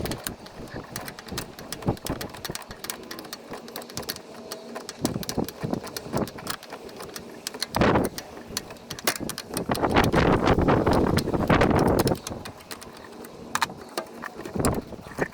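Metal hand tools clicking, clinking and knocking against brake line fittings as the brake tubing is loosened from a master cylinder. A louder rough stretch of noise lasts about two seconds past the middle.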